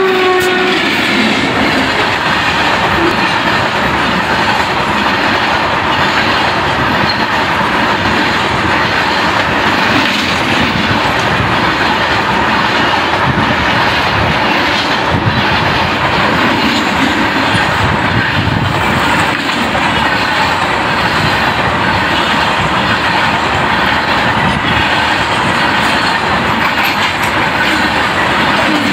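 Indian Railways freight train of tank wagons, hauled by electric locomotives, passing close by: a loud, steady rumble of steel wheels on rail with a rhythmic clickety-clack over the rail joints. The locomotive's horn cuts off just at the start.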